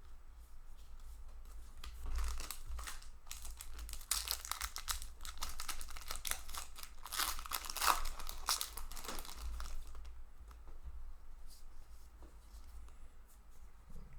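Plastic booster pack wrapper being torn open and crinkled, a dense crackle for several seconds, then tapering to a few faint clicks and rustles as the cards are handled.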